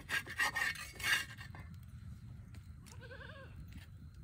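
A metal spatula scraping a bhakri on a clay tava, in a few rough strokes over about the first second. About three seconds in, a short, quavering goat bleat.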